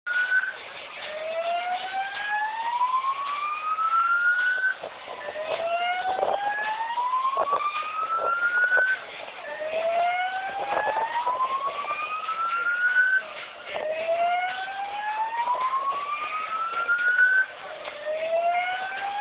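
Fire alarm sounding a slow whoop evacuation tone: a tone that climbs steadily for about four seconds, drops back and climbs again, about five times over. A few short knocks and clatter sound beneath it.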